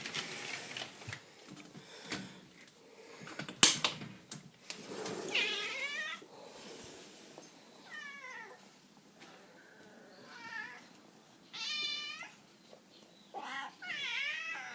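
Cats meowing repeatedly, several short wavering cries that come closer together near the end. A single sharp knock is heard a little under four seconds in.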